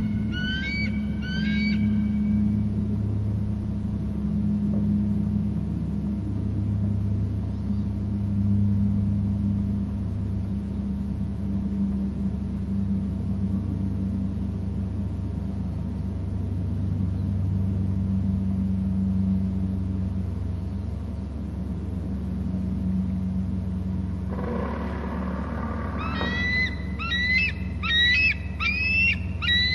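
Bald eagle calling: a few quick high chittering notes right at the start, then a longer rapid series of high, piping notes in the last few seconds. A steady low hum runs underneath.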